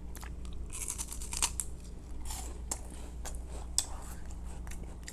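Crinkling and crackling of a snack wrapper as a chocolate-coated wafer bar is handled, with scattered sharp clicks and a denser burst of crackling about a second in.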